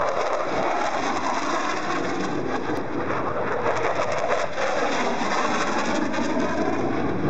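An F-16 fighter jet flying past overhead, its jet engine making a loud, steady rush of noise with faint tones in it that slowly sweep down and up as the aircraft moves across the sky.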